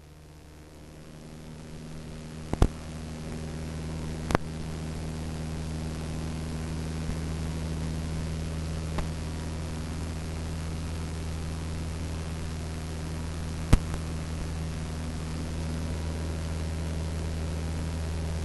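Steady hiss with a low hum from a Jabiru light aircraft's cockpit audio feed, the engine drone coming through the intercom-radio line. It grows louder over the first few seconds, then holds steady, with a few sharp clicks.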